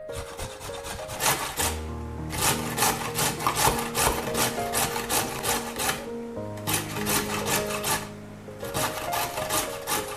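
A carrot being grated on a stainless-steel box grater: quick rasping strokes, about four a second, with brief pauses three times, over soft background music.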